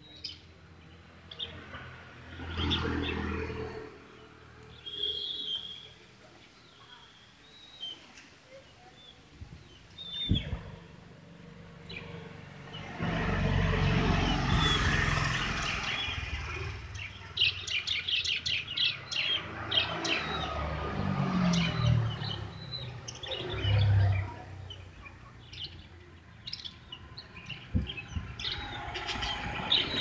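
A flock of caged budgerigars chirping and chattering in short, high chirps that come thicker in the second half. A low rumble sits under them for a few seconds about halfway through.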